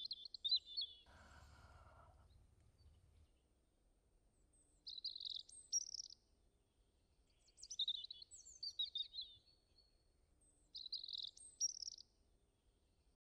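Small songbirds chirping in several short bursts of high, quick chirps, a couple of seconds apart, with quiet between them.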